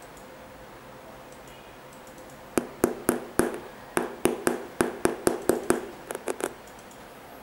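A finger tapping on the sole of an Air Jordan 14 at the raised Jumpman logo: about fifteen quick, sharp taps, roughly four a second, starting a couple of seconds in and stopping about a second before the end.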